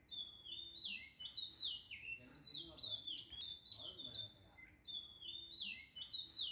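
Bird-like chirping: repeated short calls, each sliding down in pitch, about one a second, over a steady, fast-pulsing high trill.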